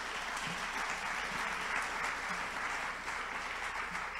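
Audience applauding steadily in a hall, thinning out near the end.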